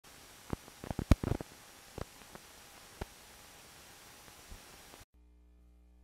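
Faint static hiss of a logo intro, with scattered sharp clicks and crackles, the loudest cluster about a second in and a faint high steady tone under it; it cuts off suddenly to near silence about five seconds in.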